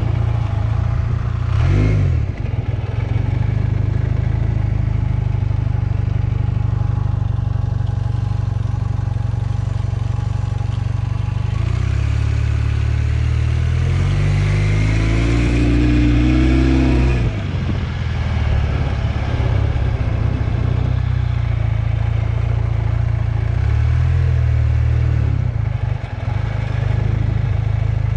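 1978 Honda CB400A Hondamatic's parallel-twin engine running on the move, revving up with a rising pitch a little under halfway through and dropping back sharply when the throttle closes. It pulls smoothly without the throttle stutter, which a swapped set of carburettors has cured.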